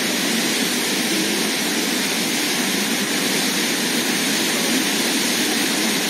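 Steady, even rush of a waterfall's falling water, unbroken and with little deep rumble.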